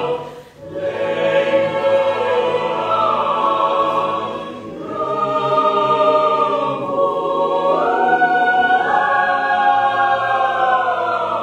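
Large mixed choir singing sustained chords, with a short break just after the start and a softer dip about four and a half seconds in. The chord then steps up in pitch twice in the second half and fades away near the end.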